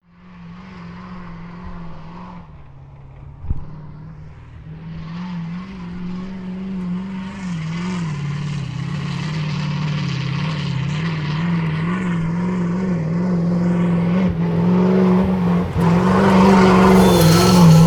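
ZIL-130 truck's V8 petrol engine running hard under load, growing steadily louder as the truck approaches. A short sharp click sounds about three and a half seconds in.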